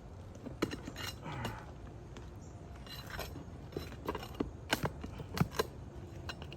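Removing roofing nails from under a damaged shingle: irregular metal clicks, knocks and short scrapes as the tool works at the fasteners.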